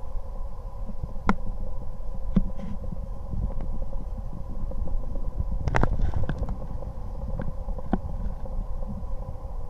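Thunder rumbling low and continuously during a night thunderstorm, swelling about two thirds of the way through, with a few short sharp clicks scattered over it.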